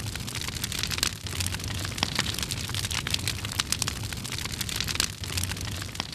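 Dense crackling made of many sharp clicks over a low steady hum.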